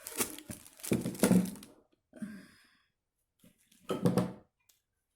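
Plastic vacuum cleaner pipes and attachments being handled, knocking and clattering together in three short bouts.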